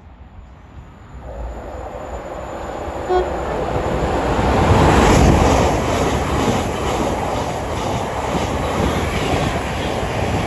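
Thameslink Class 700 electric multiple unit passing through the station without stopping: a rising rush of wheels on rail that swells to its loudest about five seconds in and stays loud, with rhythmic clatter over the rail joints. A short tone sounds about three seconds in.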